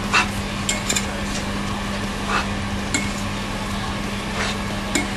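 Knife blade scraping soft halušky dough across a wooden board and cutting it off into a pot of boiling water: scattered light scrapes and taps about once a second over a steady hiss and hum.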